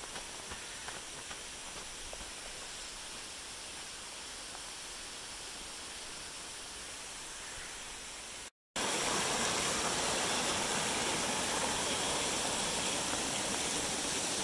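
A steady rushing hiss, cut off for a moment just over halfway through and returning louder.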